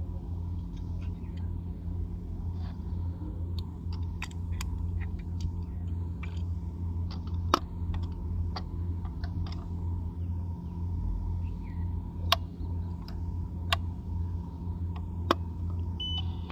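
Steady low mechanical hum, like an idling engine, with a faint steady tone above it and a handful of sharp, separate clicks scattered through it.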